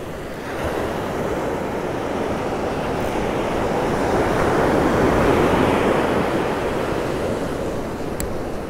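Surf breaking and washing up a sandy beach: a steady rush that swells to its loudest about halfway through and then eases off, with a single sharp click near the end.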